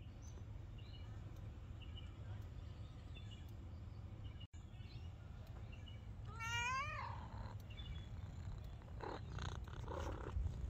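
A domestic cat meows once, a wavering call about a second long that rises in pitch, a little past the middle. Faint short chirps and a low steady rumble lie underneath.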